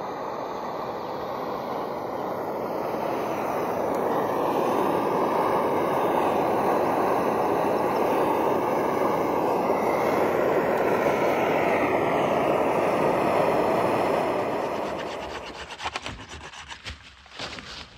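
Wind and road noise from riding an adventure motorcycle: a steady rushing that swells over the first few seconds and dies away about fifteen seconds in, leaving a run of crackling and scraping.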